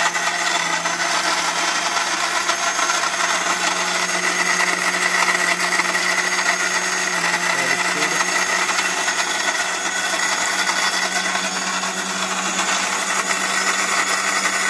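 Electrosun Sumo commercial mixer grinder running steadily on first speed, grinding a kilo of lemons to a paste in its 5-litre stainless steel jar, with a constant high whine over a low motor hum.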